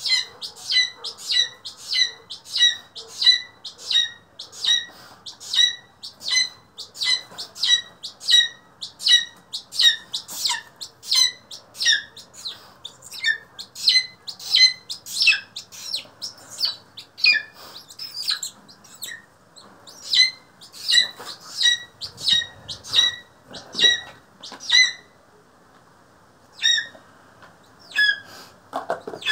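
Young black-chested buzzard-eagle calling over and over, a short, sharp, falling call about twice a second. The calls thin out to scattered ones after about fifteen seconds, with a short pause near the end.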